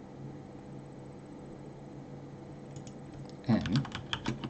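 Computer keyboard typing: a quick run of keystroke clicks begins about three and a half seconds in, after a faint steady low hum.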